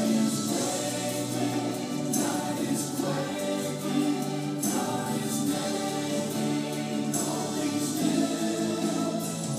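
Gospel choir music: voices singing held chords together, with a splashy beat recurring every two seconds or so.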